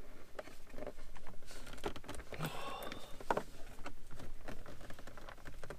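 Hands tugging at a Jeep Wrangler JL's top dash trim panel: scattered plastic clicks and knocks, a few sharper ones about one, two and three and a half seconds in, as the panel shifts against the clips that still hold it.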